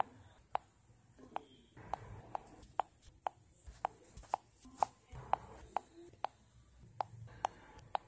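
A series of short, sharp light clicks or taps, about two a second at slightly uneven spacing, over faint hiss.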